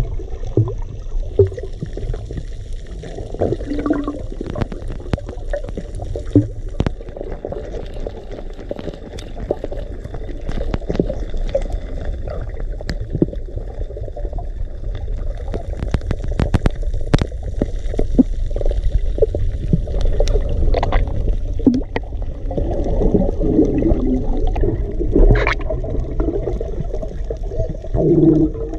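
Underwater sound as heard by a camera held underwater: a muffled low rumble of moving water with many scattered sharp clicks and crackles, and gurgling now and then.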